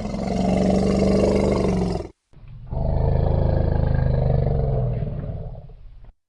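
Elephant roaring twice: a call of about two seconds, then after a brief break a longer, lower roar that fades out near the end.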